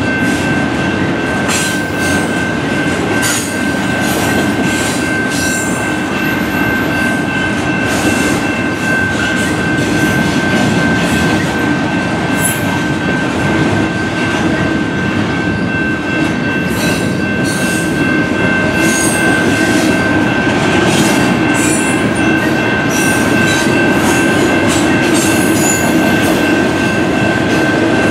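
CP double-stack intermodal freight train rolling past at a level crossing: a steady rumble of well cars with irregular clanks of wheels over the rails, and a thin steady high-pitched tone throughout.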